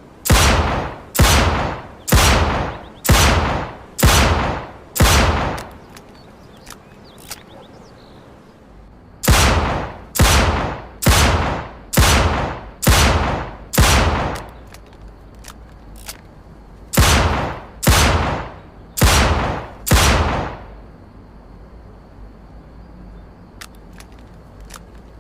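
.357 Magnum revolver firing sixteen shots, about one a second, in runs of six, six and four, each shot a sharp crack with a short echoing tail. A few faint clicks fall in the pauses between runs.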